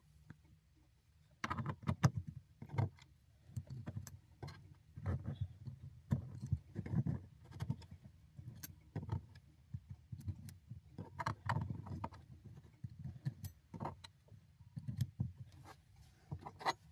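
Irregular small clicks and taps of handling a small pump's parts: the metal rotor being set into the pump housing and small replacement vanes being slotted into it, with parts touching down on a cutting mat. The first second or so is quiet.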